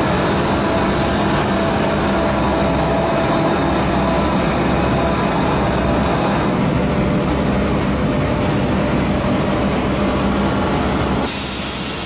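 Automatic pillow production line machinery running: a steady, loud mechanical noise with a low hum and a faint whine in it. It drops somewhat about a second before the end.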